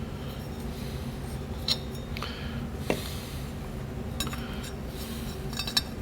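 Light clinks and taps of transmission parts being handled on a workbench, a handful of separate ticks spread a second or so apart, over a steady low hum.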